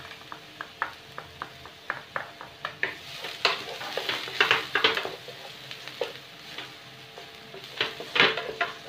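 Wooden spatula tapping and scraping on a nonstick pan as chopped onion and garlic sauté in oil, with a light sizzle underneath. Short taps a few times a second at first, then louder scraping strokes about halfway through and again near the end.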